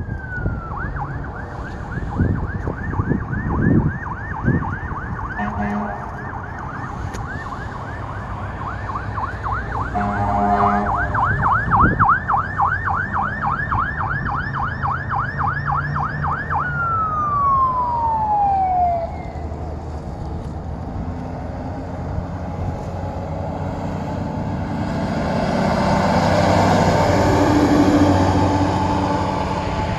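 Fire truck siren in a fast yelp, broken by two short horn blasts about five and ten seconds in. At about seventeen seconds the siren winds down in pitch, leaving the truck's engine and road noise, which grow louder near the end.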